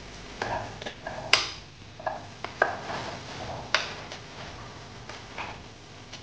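Wooden spoon stirring in an enamelled pot, tapping and scraping against its sides: a run of sharp knocks, some with a short ring, the loudest a little over a second in, thinning out toward the end.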